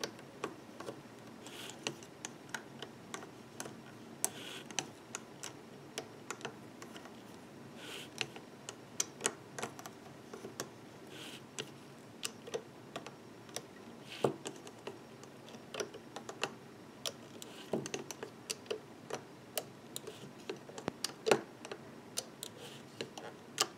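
Quiet, irregular clicks and taps of a metal crochet hook and fingers working rubber bands over the plastic pegs of a Rainbow Loom board, a few clicks a second.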